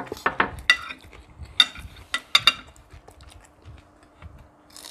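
Metal forks and spoons clinking and scraping against ceramic plates and bowls: a run of sharp clinks in the first two and a half seconds, then quieter.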